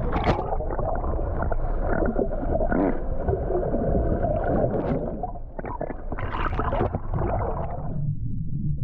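Boat engines running with wind and water noise, under a wavering mid-pitched sound that runs for the first five seconds and again from about six to eight seconds in; near the end only the steady low engine hum is left.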